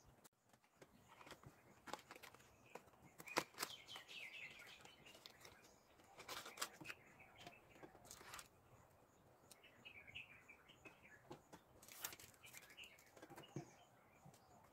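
Faint rustling and small taps of a thin cardboard box being handled and opened, with an MP3 decoder board and its wires slid out, and birds chirping faintly in the background.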